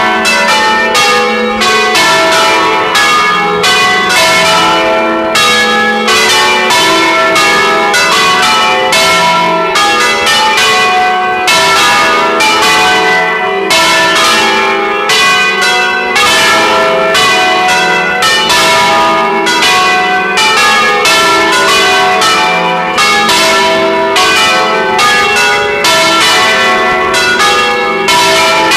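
A set of five church bells rung close up in their bell tower, a dense, continuous stream of overlapping strokes with the tones ringing on into one another.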